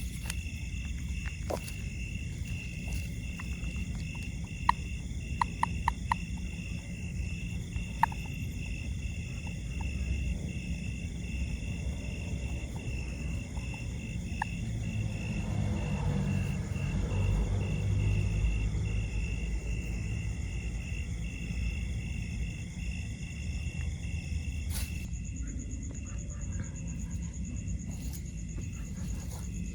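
A steady outdoor chorus of calling insects, a high pulsing call repeating about twice a second, over a constant low rumbling noise that swells briefly in the middle, with a few scattered clicks.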